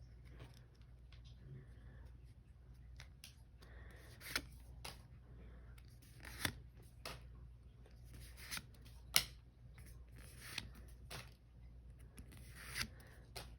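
Pokémon trading cards being handled and slid one behind another out of a freshly opened booster pack: soft scrapes of card stock with several sharp flicks, the loudest about two-thirds of the way through.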